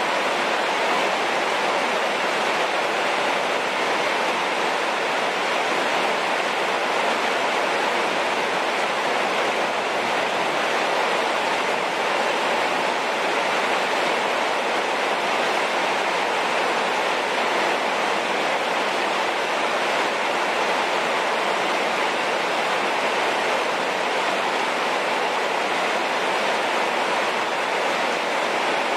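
Heavy rain falling on wet ground: a steady, even hiss.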